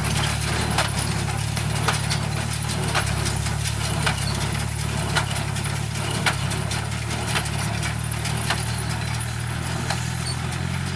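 Straw baler at work in rice straw: a steady engine drone, with a sharp knock about once a second from the baler's packing stroke.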